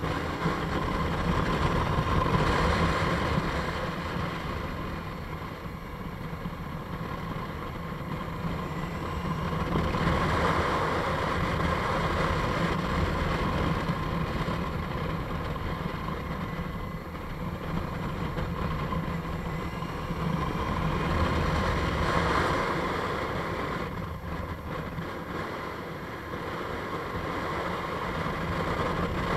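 Motorcycle engine running under way, mixed with wind and road noise on an on-board microphone. The sound swells and eases a few times as the rider opens and closes the throttle.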